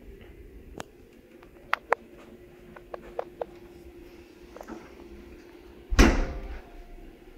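A few light clicks and taps, then one loud thud about six seconds in, over a faint steady hum.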